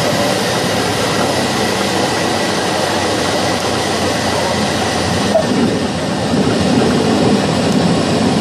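Piper PA-28's piston engine and propeller running, heard inside the cabin as a loud, steady, noisy drone. A sharp click comes about five seconds in, and the drone grows a little louder after about six seconds.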